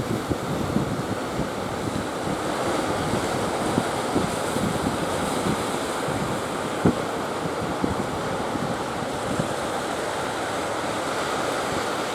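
Sea surf washing steadily at the harbour mouth, with strong wind buffeting the microphone in irregular low gusts.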